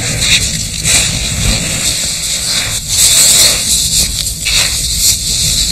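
Wind blowing hard over the microphone, with crunching and scraping of packed snow as a person crawls through a hole into a snow cave.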